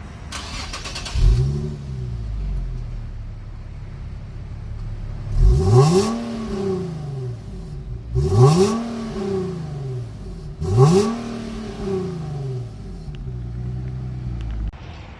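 Infiniti G37xS V6 exhaust sound: the engine idles, gets a short blip about a second in, then three full revs about two and a half seconds apart, each climbing fast and falling back slowly to idle.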